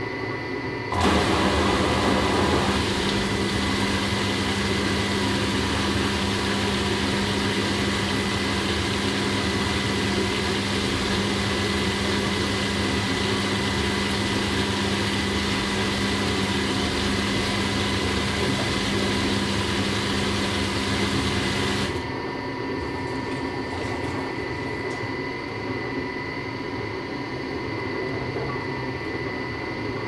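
Household washing machine running: a steady motor hum with a thin high tone. About a second in it steps up louder, and about three-quarters of the way through it drops back to a quieter hum.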